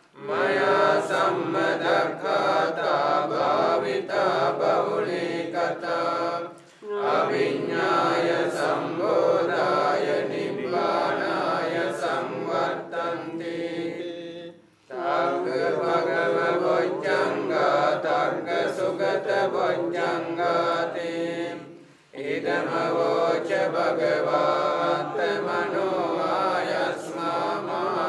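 A group of Theravada monks chanting Pali paritta in unison, a steady recitation in long phrases with a short breath pause about every seven to eight seconds.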